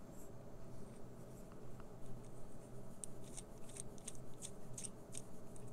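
Light handling noise of a small part being worked by hand: a quick run of about ten small ticks and clicks lasting about two seconds, starting about halfway through, over a low steady hum.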